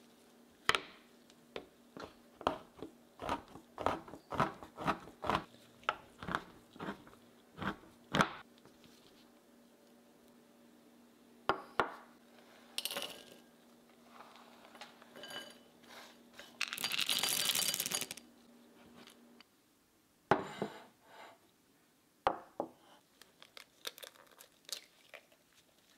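Kitchen prep sounds: a knife knocking on a plastic cutting board about twice a second for the first eight seconds or so, chopping chocolate, then a few scattered clicks and a short rustling rush just past the middle. Near the end, sharp cracks of an eggshell knocked against a bowl.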